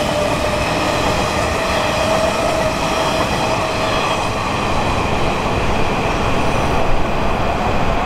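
Electric commuter train running past at a level crossing: a continuous loud rush of wheels on rails with a steady whine over it.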